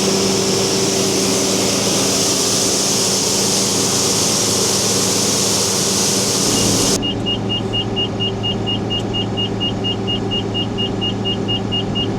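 Combine harvester running with a loud, steady rushing noise over its engine. About seven seconds in the rush cuts off abruptly and the engine settles to a lower hum, while a high electronic beep repeats about four times a second.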